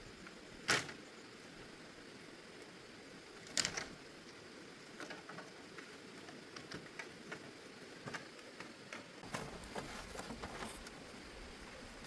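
Two sharp knocks about three seconds apart, then a run of lighter, irregular taps and clicks over a faint steady hiss.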